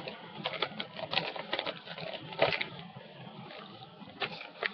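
Irregular crackles and clicks from a bag of potato chips being handled and eaten: packaging crinkling and crunching, loudest about halfway through and again near the end.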